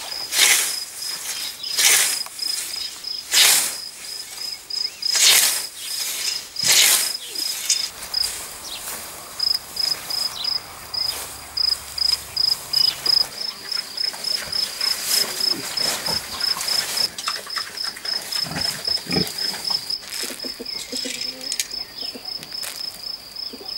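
Field cricket chirping steadily in a high, even pulse. Over it, in the first seven seconds, about five dull strikes roughly a second and a half apart: a hoe chopping into garden soil.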